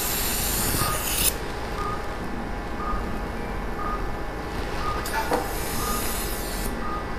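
Short electronic beeps from operating-room equipment, about one a second, over a steady hiss.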